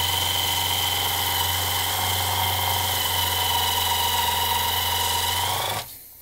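Cordless impact driver running steadily forward, its screw-extractor bit drilling a pilot hole into the head of a stripped screw in wood. It stops near the end.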